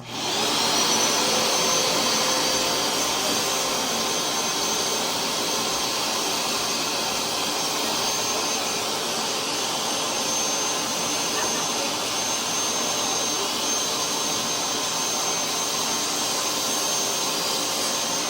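Hoover SmartWash carpet cleaner switched on: its motor spins up with a briefly rising whine, then runs steadily with a loud whooshing suction and a high whine.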